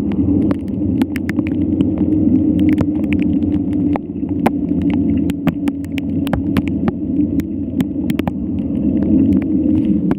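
Mountain bike being ridden over rough trail: a steady low rumble with frequent irregular sharp rattles and clicks.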